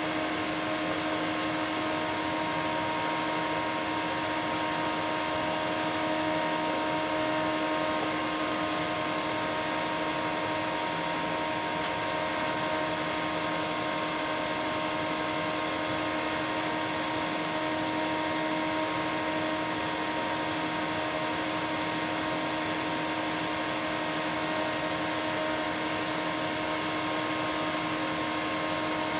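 Induction heater running steadily as it heats water in a steel can: a constant hum made of several steady tones over an even hiss.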